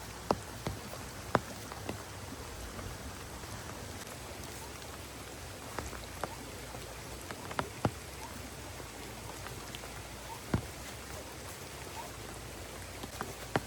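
Steady rain falling, with scattered sharp taps of single heavy drops striking close by at irregular intervals.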